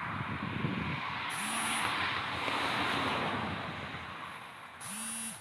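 Wind buffeting and hissing on the microphone in strong wind, with two short electronic beeps about three and a half seconds apart.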